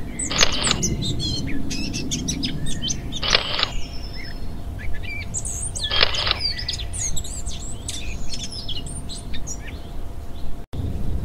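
Songbirds chirping, many short high calls overlapping, with three short rushes of noise about three seconds apart and a low rumble underneath. The sound cuts out for an instant near the end.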